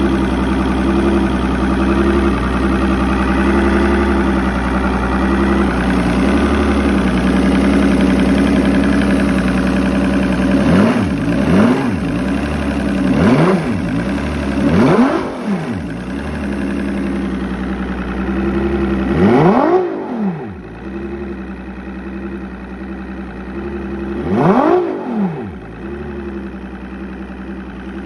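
Evinrude Ficht Ram 250 hp V6 two-stroke outboard idling steadily, then revved in four quick blips about halfway through and two longer revs near the end, each rising and falling back to idle.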